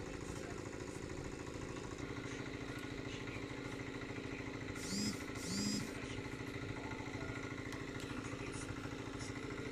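A small engine runs steadily throughout. About five seconds in, a dog gives two short whines that rise and fall in pitch, less than a second apart.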